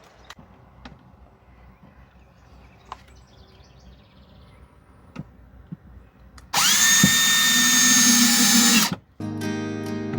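Cordless drill driving a screw: light handling clicks and taps, then the motor spins up and runs at a steady high whine for about two and a half seconds before stopping abruptly.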